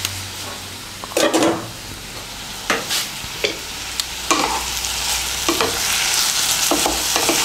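Bottle gourd peels and potatoes sizzling in oil in a wok, with a spatula stirring and knocking against the pan several times. The sizzle grows louder toward the end.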